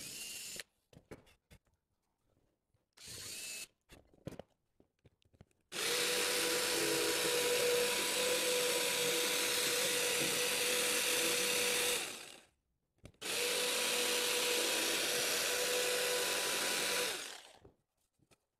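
A cordless drill runs briefly to bore a pilot hole. Then a corded jigsaw cuts a circle out of cement board in two steady runs of about six and four seconds, with a short pause between them.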